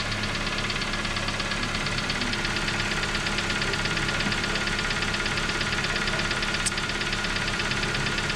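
Hyundai Getz engine running with a fast, regular ticking knock. The knock remains after new hydraulic lifters and a new oil pump plunger, only a little quieter.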